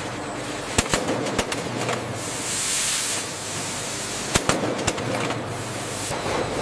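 Food-processing machinery running with a steady hum, broken by two short clusters of sharp clicks or knocks and a burst of hiss lasting about a second in the middle.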